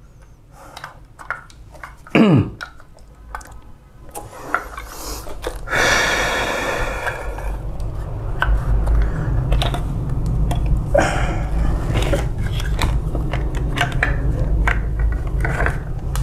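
Plastic and metal copier parts being handled: scattered clicks, knocks and rattles, with a brief falling squeak about two seconds in. A short burst of hiss comes around six seconds, and a steady low hum runs under the handling noises from then on.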